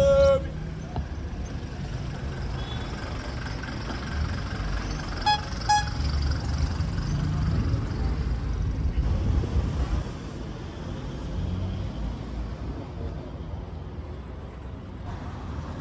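Street traffic with a low, steady engine and road rumble, and a car horn tooting twice in quick succession about five and a half seconds in.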